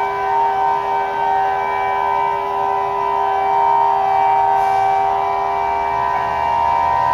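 Civil defense sirens sounding a tsunami warning: a loud, steady tone of several blended pitches, held without rising or falling.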